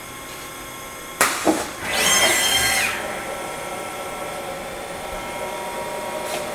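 2003 Haas SL-10 CNC slant-bed lathe running a program, its spindle giving a steady whine of several fixed tones. A little over a second in there is a sharp click, and at about two seconds a louder whirring burst lasts about a second.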